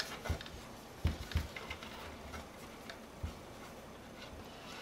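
Faint handling noise as Shimano Di2 electrical wires and the junction box are tucked into the bottom bracket shell of a carbon bike frame: soft rustling, with a few light knocks about a second in and again past three seconds.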